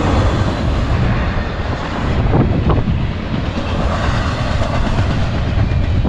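Freight train's single-stack intermodal well cars rolling past close by: a steady low rumble with the clatter of steel wheels on the rails.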